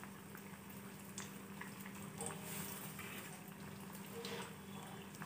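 Tomato malpua deep-frying in hot oil: faint bubbling and crackling, with a steady low hum underneath.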